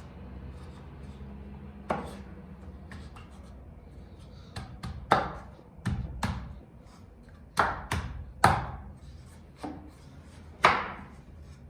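About a dozen sharp blows struck on wood at an irregular pace, each ringing briefly; the loudest come near the middle and near the end.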